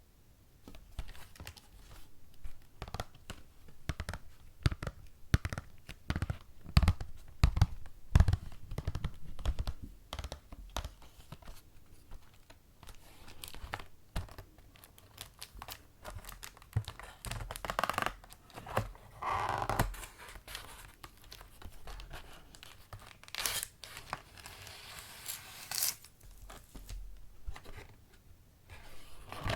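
Close-miked handling of scratch-art board materials: irregular clicks, taps and soft knocks, then longer rasping, tearing-like scrapes about eighteen and twenty-four seconds in.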